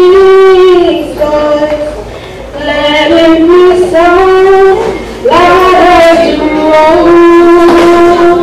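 A high female voice singing a slow song in long held notes, phrase after phrase, with a short pause about two seconds in.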